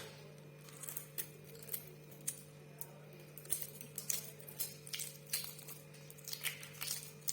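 Kitchen utensils and dishes clinking and tapping lightly at irregular intervals, over a steady low hum.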